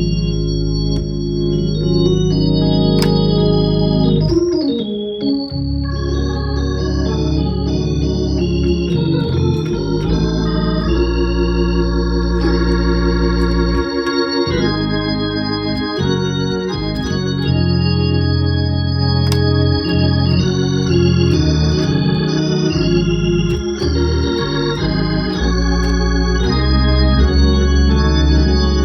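Hammond B3 organ played through a Leslie speaker: sustained chords with a moving melody line, and a brief wavering sweep in pitch about four seconds in.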